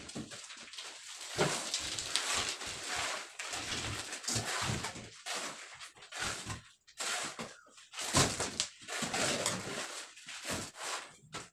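Shovel scraping and scooping wet concrete from a metal wheelbarrow: irregular gritty scrapes with short pauses between them.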